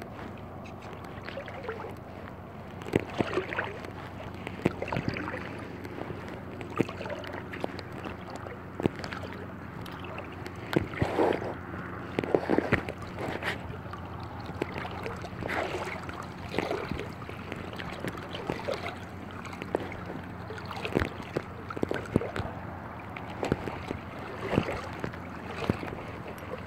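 Handling noise: irregular knocks and rustles as a phone is moved about, over a steady low hum.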